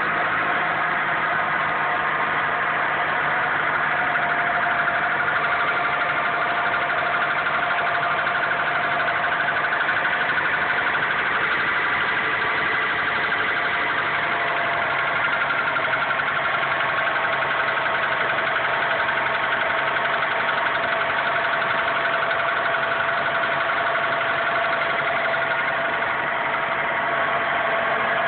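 2001 Honda Accord engine idling just after a cold start, with a rapid, steady knocking over the running engine. The knock shows up only for a short time on a cold start and then goes away completely; its cause is unknown.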